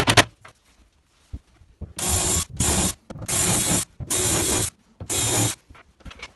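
A cordless impact driver's burst cuts off right at the start. Then a Bosch cordless drill driver runs in five short bursts of about half a second each, driving screws into melamine-faced chipboard panels.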